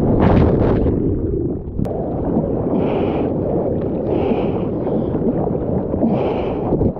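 Seawater splashing and rushing over a surfboard-mounted action camera in the surf: a loud splash at the start as it goes under the whitewash, then a churning rush of water with a few shorter splashes.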